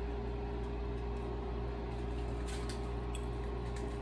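A steady machine hum with one constant tone running under it, and a few faint clicks in the second half.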